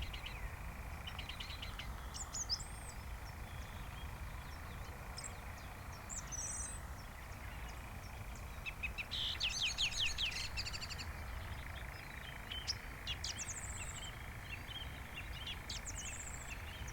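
Song thrush singing in short, high, repeated phrases, one a loud rapid trill about halfway through, over a steady low background rumble.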